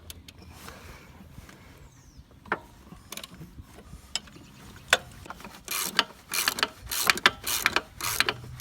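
A hand socket ratchet clicking while a motor-mount bolt is worked, with a few scattered clicks at first and then a quick run of strokes, about three a second, through the second half.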